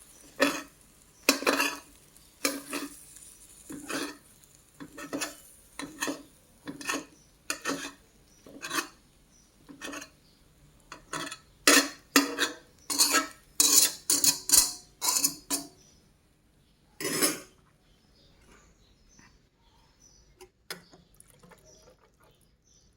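Kitchen utensils clinking and knocking against pots and dishes, in separate sharp strikes about one a second, coming quicker with some scraping past the middle, then thinning to faint small clicks near the end.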